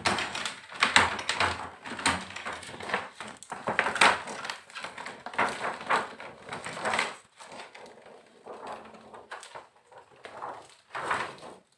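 Thin plastic reflector sheet of an LED TV's backlight crinkling and rustling as it is lifted and pulled off, dying down after about seven seconds, with one more short rustle near the end.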